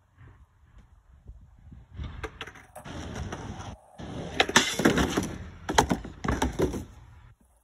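Skateboard wheels rolling over concrete, then the board's tail popping and the board and shoes clattering onto a wooden pallet deck: a run of sharp wooden knocks, the loudest in the second half.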